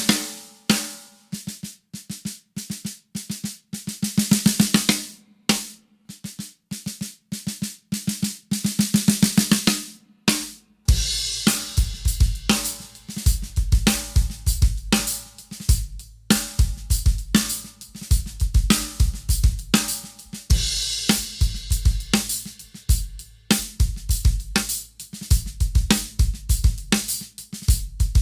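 A 14x5 brass snare drum played alone with single strokes and fast rolls, as a test of its open tone against muffling with a face mask laid on the batter head. About 11 seconds in, a full drum kit groove takes over, with bass drum, snare and cymbals.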